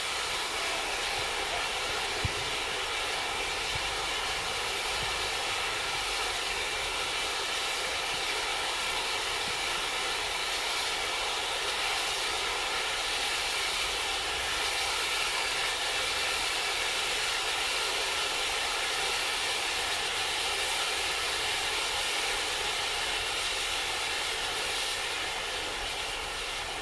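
Pyrotechnic flower effect and spark fountains burning with a steady rushing hiss of sparks, with one sharp click about two seconds in. The hiss starts to die away near the end as the effect burns out.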